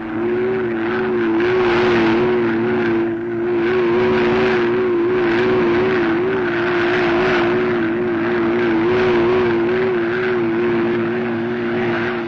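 Vintage cartoon sound effect of a machine: a loud, steady engine-like roar with a wavering, warbling tone over it, dipping briefly about three seconds in.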